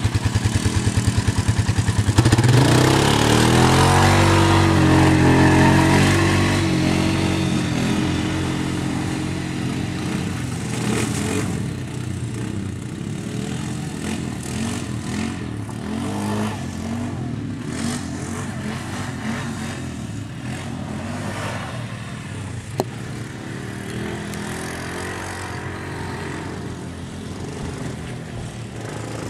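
ATV engine revving with its pitch rising and falling, loudest in the first several seconds and then fading gradually as it keeps working up and down. A single sharp click about 23 seconds in.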